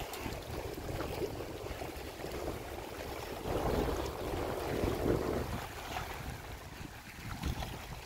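Wind noise on the microphone over small wind-driven waves lapping at a lake's rocky edge. The water sound swells a little about halfway through.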